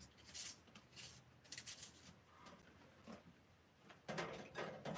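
Kitchen knife slicing through an onion held in the hand, faint crisp cuts about two or three a second, followed by a louder rustling near the end.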